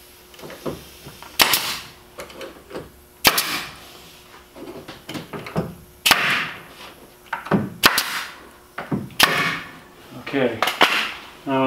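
Pneumatic nail gun firing fasteners through thin wrap paneling into the trailer's wooden frame: about five sharp shots, one to two seconds apart.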